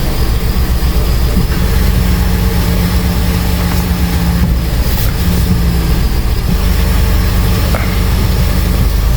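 Honda CR-V engine idling steadily after a steering rack replacement, a continuous low hum with a faint tone that comes and goes over it.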